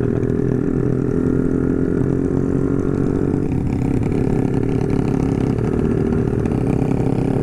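Honda CB150R's single-cylinder engine running through a BSS round aftermarket exhaust, steady, its note shifting slightly about three and a half seconds in.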